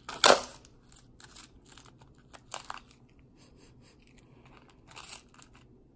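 A small plastic candy-kit packet is torn open with one sharp rip about a quarter second in, followed by light, intermittent crinkling of the wrapper.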